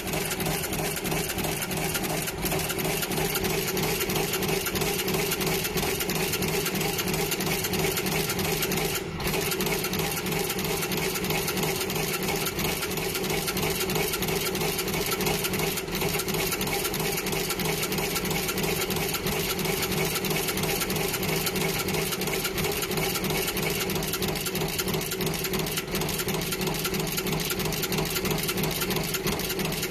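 Radial insertion machine running, inserting taped LEDs into a circuit board one after another: a fast, even mechanical clatter over a steady hum.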